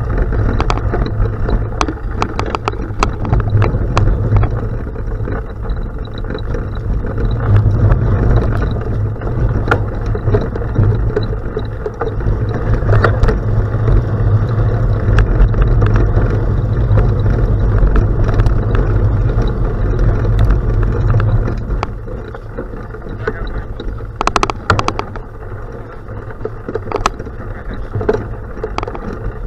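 Riding noise from a bicycle on a gravel road: a steady low rumble of wind on the microphone and tyres on gravel, with scattered ticks and rattles from bumps. The rumble eases about two-thirds of the way through.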